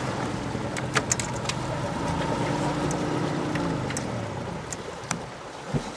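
A boat motor running steadily, slowly fading toward the end, with a few sharp clicks over it.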